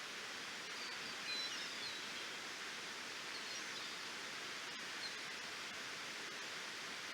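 Steady, even rush of a waterfall. A few faint bird chirps come through between about one and two seconds in, and once or twice more later.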